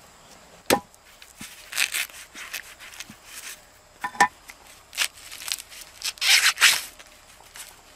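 A large knife chopping ears of corn on a flat stone slab: two sharp chops, one under a second in and another about four seconds in, with short rustling and tearing of corn husks between, the loudest a little after six seconds.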